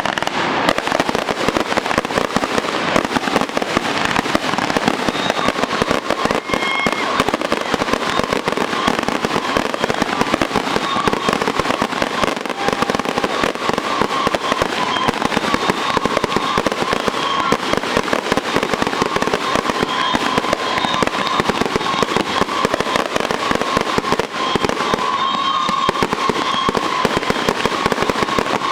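Fireworks crackling and popping densely and without a break, with a faint wavering tone running through the crackle.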